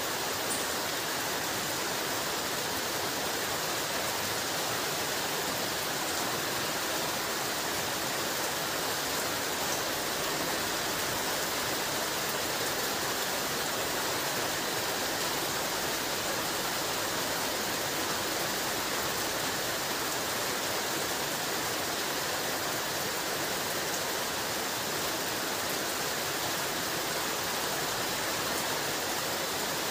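Heavy rain falling steadily at night, a constant even hiss with no change in strength.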